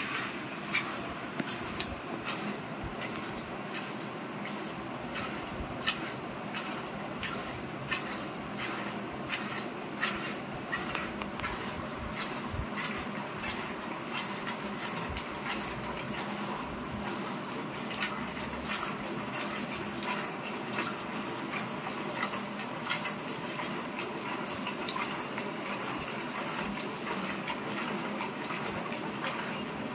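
Cow being milked by hand: jets of milk squirting in a steady rhythm of about two squirts a second as the teats are pulled, hissing as they strike the milk.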